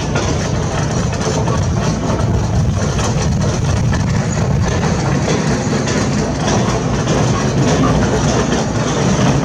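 Heavy construction machine's diesel engine running steadily, with faint clicks and scrapes from the work over it.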